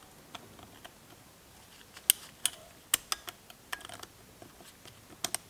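Irregular light, sharp metallic clicks and ticks as a piston ring is fitted onto a piston with ring-expander pliers, the loudest clicks about two and three seconds in.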